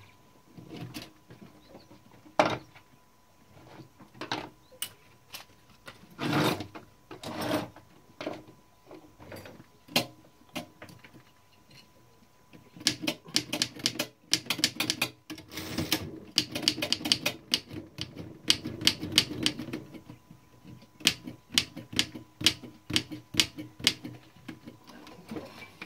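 Keys of a 1912 Mercedes No. 3 typewriter being pressed, type bars clacking. Scattered single strokes come first, then a fast run of clacks about halfway through, then a few more spaced strokes.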